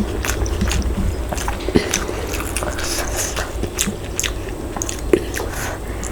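Close-up chewing and biting of a mouthful of mutton curry with rice, with irregular wet clicks and crunches.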